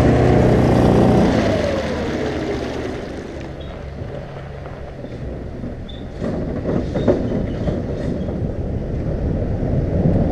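Background music fading out over a low rumble in the first two seconds. From about six seconds in, wind buffets a camera mounted on the outside of a moving car, over road noise.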